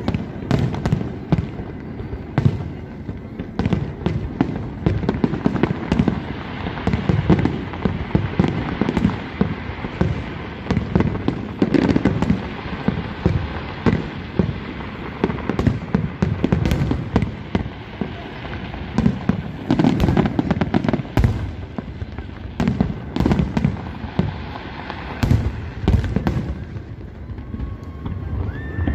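Fireworks display: a dense, almost unbroken run of aerial shells bursting, booming and crackling one on top of another.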